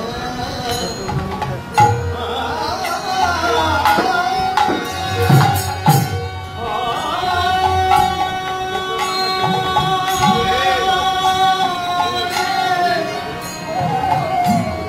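Bengali Hari-naam kirtan: a male lead voice singing over harmonium and two khol drums. There are a few loud drum strokes in the first half and a long held note through the middle.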